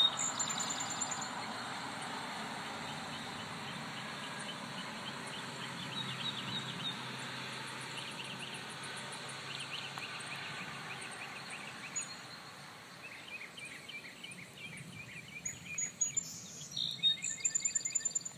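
Outdoor ambience of a steady low rush with small birds chirping on and off, the chirping growing busier near the end as a quick run of sharp high chirps.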